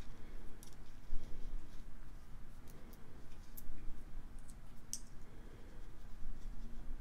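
Small glass, stone and metal beads clicking against each other as they are picked up and set down: scattered light clicks, the sharpest about five seconds in.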